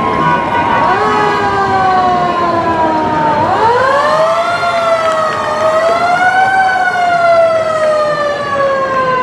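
A siren wailing in slow sweeps. It falls in pitch, rises again for a couple of seconds about a third of the way through, then falls slowly to the end.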